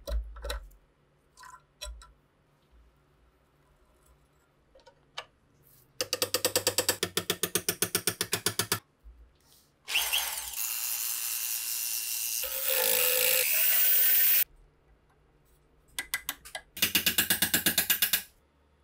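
Metal clicks and taps as a rusty SVT-40 trigger group is worked apart with pliers, then a burst of rapid ratchet-like clicking, about nine a second. A small rotary tool spins for about four seconds, and its pitch shifts as it bears on the metal. A second short burst of rapid clicking comes near the end.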